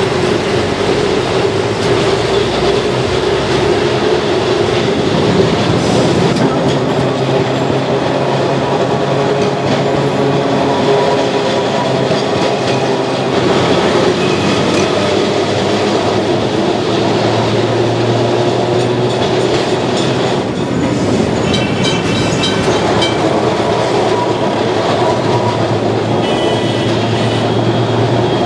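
Electric street tram running on its rails, heard from on board: a steady rumble of wheels on track and running gear, with short high-pitched squeals a few times in the last third.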